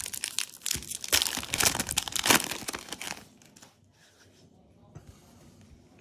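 Foil wrapper of a Yu-Gi-Oh booster pack crinkling and tearing as it is opened. The dense crackle lasts about three seconds, then dies down to faint handling.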